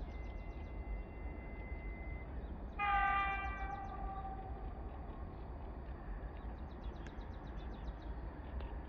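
EP20 electric locomotive's horn sounding one short, fairly high-pitched blast about three seconds in, lasting about a second before it fades.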